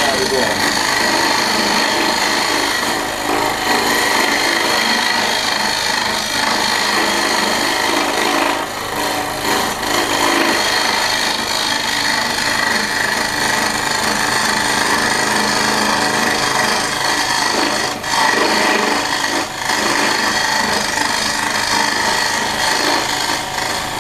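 Homemade wood lathe spinning a softwood blank while a small hand tool scrapes and cuts into it: a continuous rasping cut over a steady high whine, with a few brief breaks.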